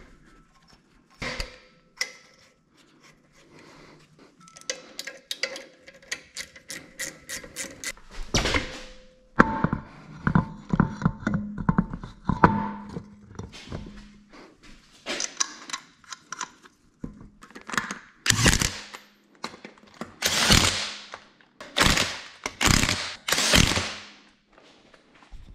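Hand-tool work on a car's rear brake caliper and wheel: a run of quick, evenly spaced clicks, metal knocks and clunks, then several short loud bursts near the end.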